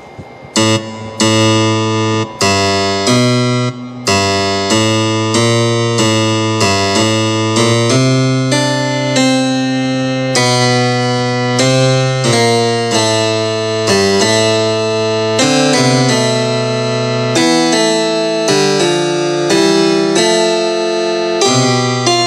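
Yamaha DGX-660 digital piano played with both hands: chords struck about twice a second over held bass notes.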